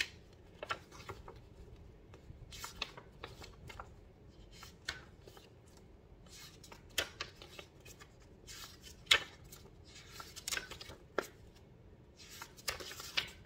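Pages of a small paper booklet being turned and handled: scattered crisp rustles and flicks of paper, the sharpest about nine seconds in.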